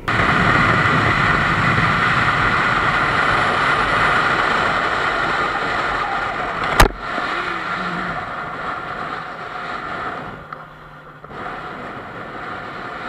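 Wind rush and engine noise of a motorcycle riding at highway speed, picked up by a camera on the bike or helmet. A single sharp knock comes about seven seconds in, and after it the noise is quieter.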